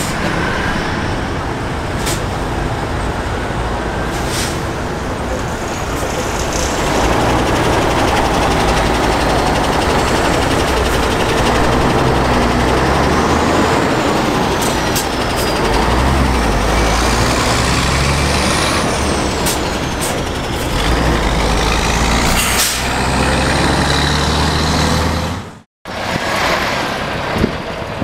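Vintage diesel trucks driving past one after another, their engines running loud with the note rising and falling as they pull through, and short hisses of air brakes now and then. The sound breaks off for a moment near the end.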